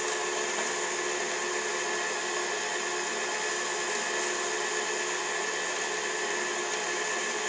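Oster stand mixer running steadily, its electric motor driving the beaters through cookie dough in a glass bowl.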